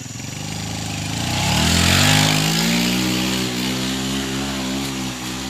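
Motorcycle engine revving up: its pitch rises over the first two seconds, loudest about two seconds in with a burst of hiss, then held at a steady higher speed.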